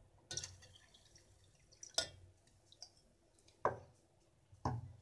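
Four faint, sharp taps, spaced a second or more apart, with the loudest about two seconds in.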